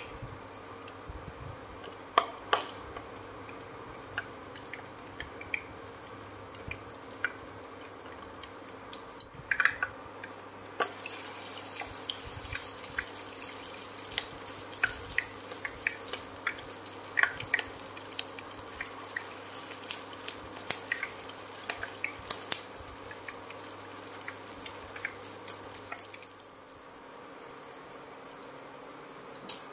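Rice patties frying in hot oil in a pan: scattered crackling pops and spits, coming thicker from about ten seconds in as more patties go into the oil, over a steady low hum.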